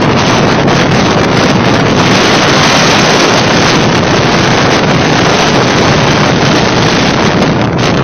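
Storm wind blasting across a phone's microphone: loud, continuous rushing noise with no letup.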